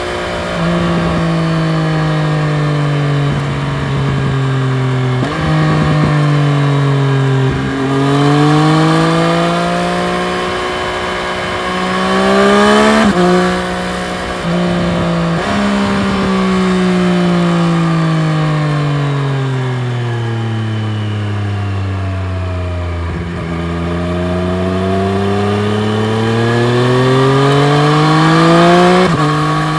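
Triumph Street Triple RS's 765 cc inline-three engine under way, its revs climbing and dropping sharply with a run of gear changes in the first half. Through the middle the revs fall slowly as the bike slows, then climb again near the end.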